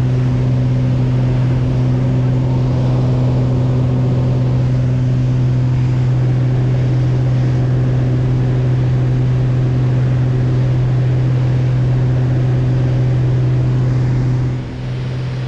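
Single-engine high-wing light aircraft's engine and propeller droning steadily at climb power, heard from inside the cabin during takeoff and climb. The level dips briefly near the end and settles a little quieter.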